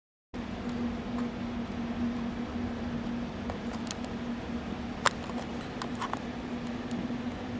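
Room tone: a steady hum with scattered light clicks and taps, the sharpest a click about five seconds in. It cuts in abruptly from silence just after the start.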